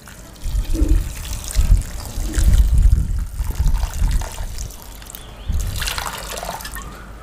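Water poured from a metal jug into an aluminium pressure cooker, splashing and trickling onto the raw chicken pieces and lentils in the pot; it starts about half a second in.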